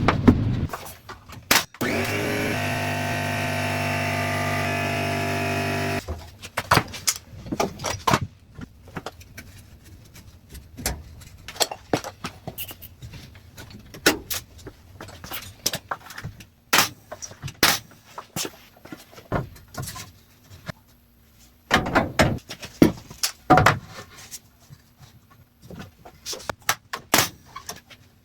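Carpentry work while fitting door jambs: a power tool's motor runs steadily for about four seconds, then stops, followed by many irregular sharp knocks and taps of wood being fastened and set in place, with a burst of louder hits near the end.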